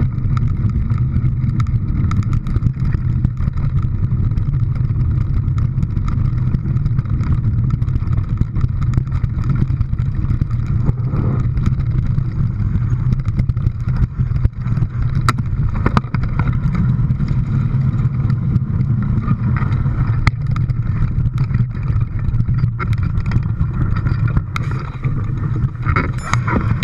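An engine running steadily at an even speed, with a strong low hum and occasional small knocks.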